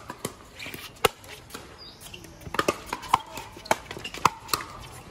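Pickleball rally: sharp pops of composite paddles striking the hollow plastic ball, about eight hits in quick succession, the loudest about a second in and another near the end.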